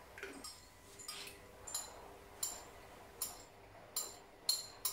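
A utensil clinking repeatedly against a small ceramic bowl as cornstarch is stirred into a soy-and-vinegar seasoning sauce: about eight or nine light, ringing clinks at uneven intervals of about half a second.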